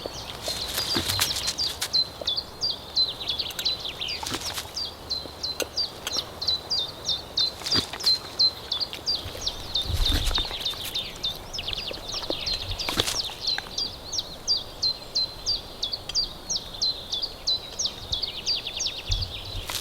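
Spring birdsong in a pine forest: a small songbird repeating short, high chirps about three times a second, with other birds behind it. A few sharp clicks and a low thud near the middle break in.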